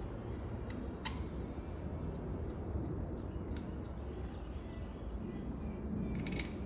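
Steady low background rumble with a few sharp clicks: one about a second in, one past the middle, and a quick cluster of them near the end.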